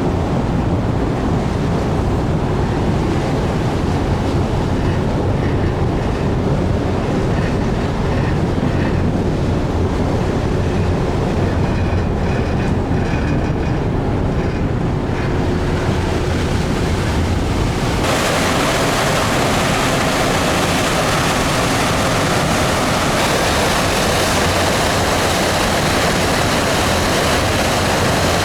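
A ship's hull scraping and grinding along the lock wall, a dense low rumble with faint high screeches now and then. The uploader calls these unusual noises that you do not normally hear. About two-thirds of the way through, a steady hiss of wind or rushing water cuts in abruptly over the rumble.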